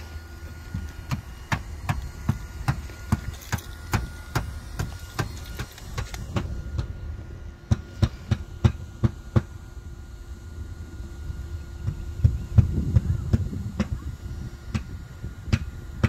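Footsteps on an asphalt shingle roof: runs of short light thumps and clicks at about two a second, with a denser patch of low thumps near the end, over a steady low rumble.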